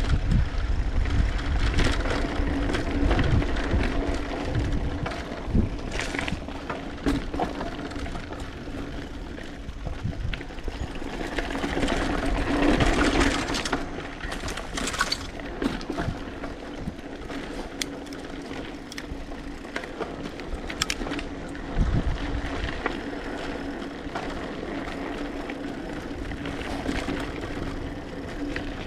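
Mountain bike being ridden along a dirt trail: tyres rolling with scattered rattles and knocks over bumps, and a steady hum underneath. Wind buffets the microphone in the first few seconds.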